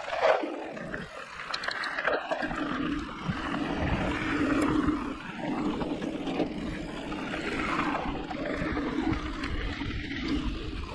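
Electric mountain bike rolling fast down a dirt trail: knobby tyres rumbling over the ground, with wind rushing over the mountain-bike camera's microphone. The noise is uneven, with a sudden jump in loudness at the start.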